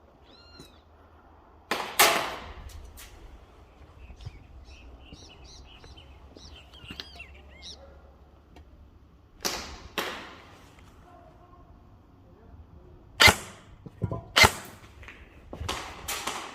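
Airsoft guns firing scattered single shots, sharp pops several seconds apart, some in quick pairs. A bird chirps between the shots.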